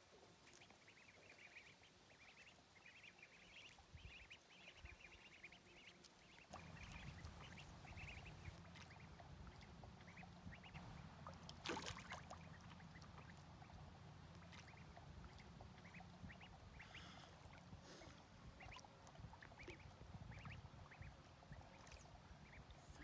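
Faint, high-pitched peeping of domestic ducklings, many short calls throughout, with a brief splash about twelve seconds in. A low steady rumble joins from about six seconds in.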